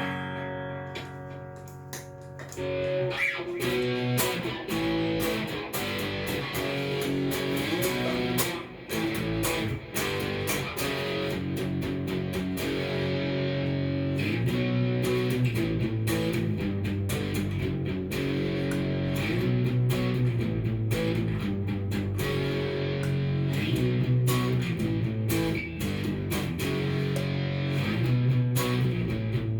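Cort S series electric guitar played through a Fender amp. A chord rings out and fades over the first couple of seconds, then a steady run of picked and strummed chords and single notes follows.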